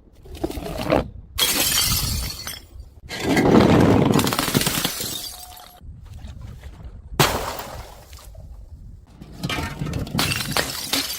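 Glass bottles breaking and shattering, several separate breaks one after another, each starting suddenly.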